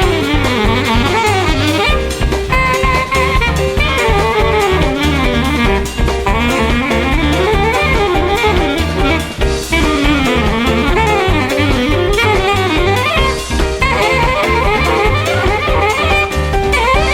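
Jazz recording: soprano saxophone playing fast, winding melodic runs over bass and drums.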